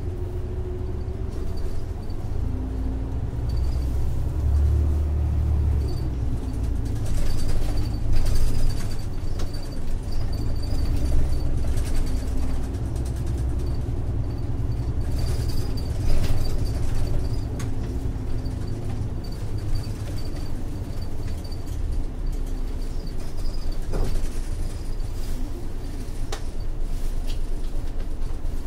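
Inside an Isuzu Erga city bus under way: its 6HK1-TCC six-cylinder turbodiesel running through an Allison five-speed torque-converter automatic, with a low rumble and an engine note that rises and falls with speed. A few sharp knocks and rattles come through now and then.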